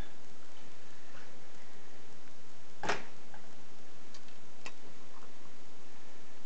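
A few isolated sharp clicks, the clearest about three seconds in and a weaker one near five seconds, over steady background noise.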